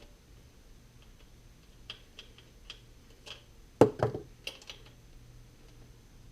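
Light metallic clicks, then a few louder knocks near the middle, as steel cylinder head bolts are drawn out with a magnetic pickup tool and set down.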